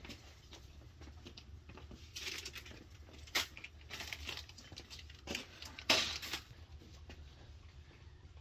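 A handful of short, irregular scraping swishes of a long-handled tool working slushy snow and grit on the ground, over a steady low hum.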